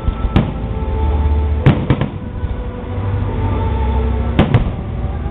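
Aerial firework shells bursting overhead in sharp bangs: one about half a second in, two close together near two seconds, and another close pair near the end. Steady music plays underneath.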